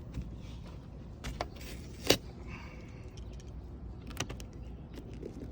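Scattered sharp metallic clicks and clinks of a hand tool working on car trim, a handful of separate knocks with the loudest about two seconds in.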